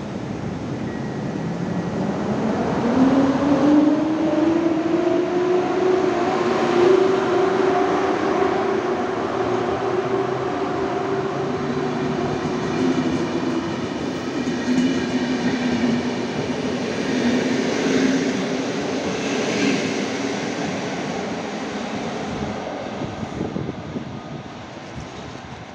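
EP07 electric locomotive pulling a passenger train out of the station. A whine rises in pitch over the first few seconds as it gathers speed, then holds steady over the rumble of the coaches rolling past. The sound fades near the end as the train moves away.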